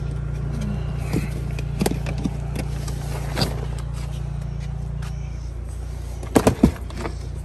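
Items being shifted around in a vehicle storage compartment: a few scattered knocks and rattles, then a cluster of louder knocks near the end as a plastic tackle box is lifted and moved. A steady low hum runs underneath.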